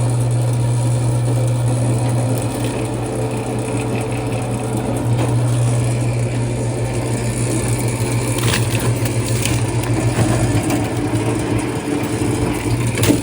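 A 3 hp single-phase electric cable-stripping machine running with a steady motor hum, feeding and slitting cable with a grinding, scraping sound and a few sharp clicks.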